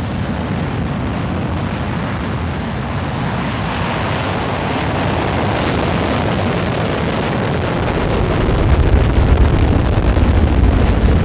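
Rocket launch sound: the dense, steady noise of the rocket engine's exhaust at lift-off, growing louder with a heavier low rumble about eight and a half seconds in.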